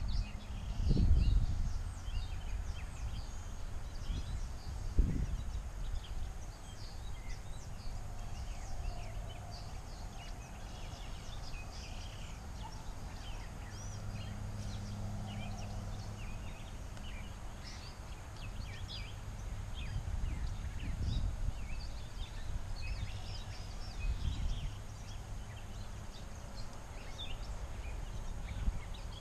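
Pond-bank ambience: many short bird chirps over low wind rumble on the microphone, with two low thumps in the first five seconds and a brief low drone near the middle.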